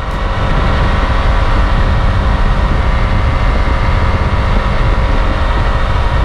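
Suzuki outboard motor running steadily at speed, mixed with a loud rush of wind and water.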